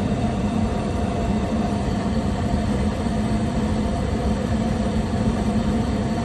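Goodman gas furnace running with its burners lit: a steady rushing noise with a low hum.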